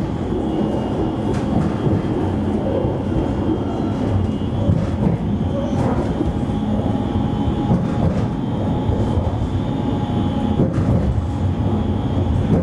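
Alstom Citadis tram running along the track, heard from the driver's cab: a steady rumble of wheels on rails with a faint high steady whine, and a few short clicks. A second thin steady tone joins about halfway and fades near the end.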